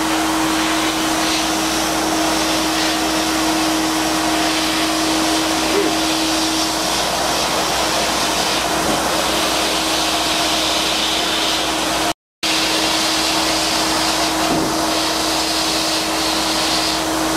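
HBM sandblasting cabinet in use: the compressed-air blast gun hisses steadily as abrasive is blasted at a part, over a steady hum.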